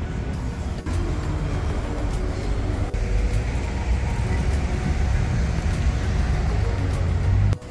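Steady rumble of vehicle noise, strongest in the low end, cutting off suddenly near the end.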